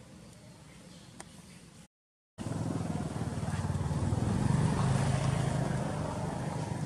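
A motor vehicle's engine running close by, swelling to its loudest about halfway through and fading toward the end, after a brief dropout in the sound about two seconds in.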